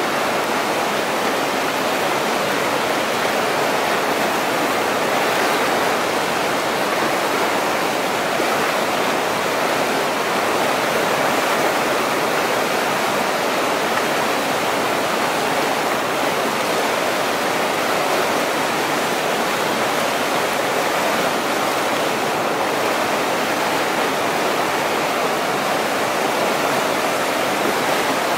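Whitewater river rapids rushing: a loud, steady, unbroken sound of churning water.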